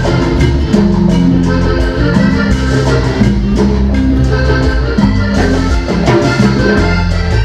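Vallenato band playing live without vocals: an accordion melody over bass and a steady beat of percussion strokes.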